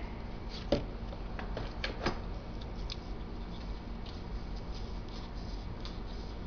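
Light clicks and taps of a plastic glue bottle being handled and its cap worked open, two sharper clicks in the first two seconds and fainter ticks after, over a steady low hum.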